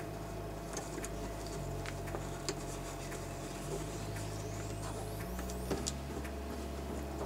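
Light clicks and rustling of wires and a small plastic module being pushed up into a vehicle's headliner trim, over a steady low hum.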